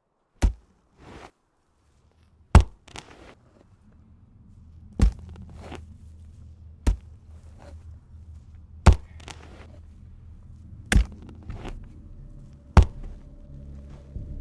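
A small hand pick striking hard, dry ground in slow, regular blows, seven in all, about one every two seconds, each followed by a lighter knock or scrape. A low steady drone swells in beneath the blows, and a held tone joins it near the end.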